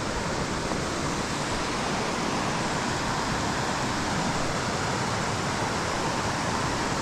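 Rushing water of a rocky mountain creek running over rapids: a steady, even rush.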